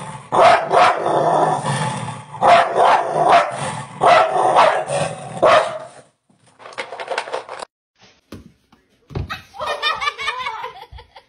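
A dog barking and snarling in a run of short, loud bursts while guarding its food bowl. The bursts stop about six seconds in, followed by a few soft thumps and a wavering, voice-like sound near the end.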